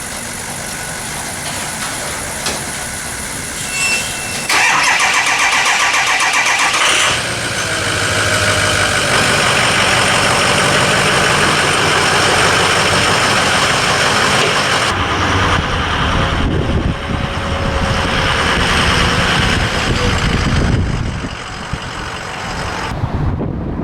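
Vehicle engine cranked by its starter for a couple of seconds, catching, then running steadily before dropping away near the end.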